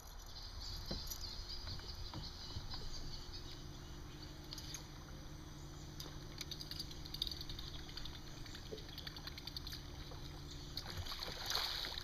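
A buzzbait with an aluminum blade being slowly retrieved across the water surface, its blade churning and squeaking in a steady fast chatter, over a low steady hum. Near the end the hum stops and there is louder splashing as the rod bends into a fish.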